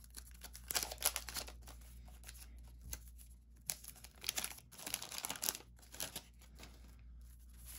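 Wax paper wrapper of a 1991 Fleer basketball card pack being torn open and crinkled by hand, in several short bursts of crackling.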